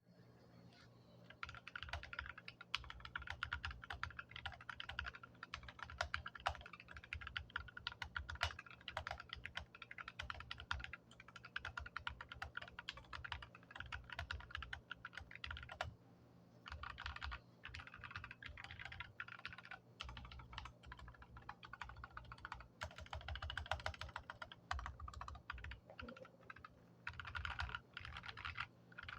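Typing on a Keychron K8 mechanical keyboard with lubed and filmed Gateron Brown tactile switches on an aluminium plate in a tray-mount case. The keystrokes are fast and continuous, starting about a second in, with a short pause around the middle.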